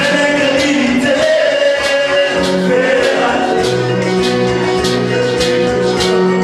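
Men singing a gospel song into microphones, with an acoustic guitar and a steady beat underneath.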